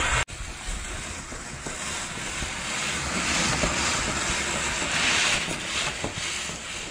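Traxxas TRX-4 RC crawler driving over loose gravel and sand: a gritty hiss of tyres churning and flinging grit, with no steady motor tone standing out. The sound drops out briefly about a quarter second in, then swells again about halfway through and near the end.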